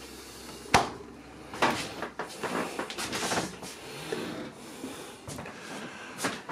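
A small galley fridge door swung shut with one sharp knock about a second in, followed by softer rustling and scraping handling sounds.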